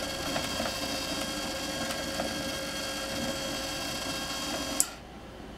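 The small electric motor of a homemade trommel mechanism runs steadily, then stops with a click about five seconds in.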